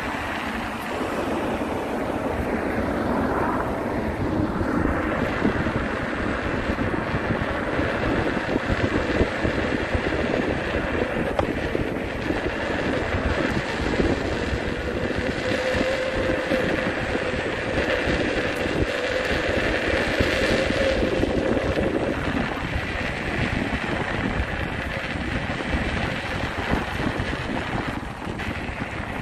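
Wind buffeting the microphone over steady road-traffic noise, with a faint steady hum for a few seconds past the middle.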